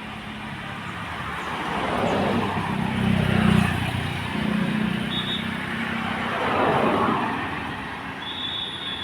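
Road vehicles driving past close by: a deep engine rumble from a large vehicle builds and fades, with two pass-bys loudest about three and a half and seven seconds in.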